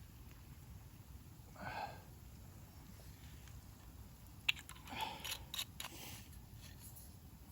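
Small handling sounds of cooking prep: a soft rustle, then a sharp click about halfway through, followed by a short cluster of clicks and rustles.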